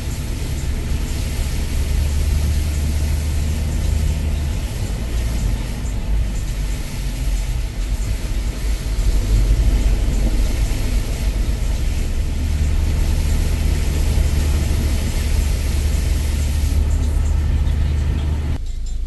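Steady low rumble of a car driving, heard from inside the cabin, with a hiss of tyres running through shallow floodwater on the road. The sound cuts off abruptly near the end.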